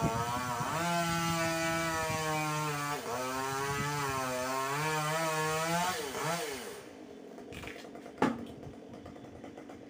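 Two-stroke chainsaw running at high revs, its pitch rising and falling, then dropping off about seven seconds in. A single sharp knock follows about a second later.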